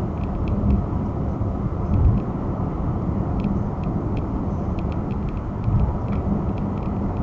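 Steady road and engine noise inside a car cruising on a motorway at about 57 mph: a low rumble of tyres on the road, with a couple of brief swells.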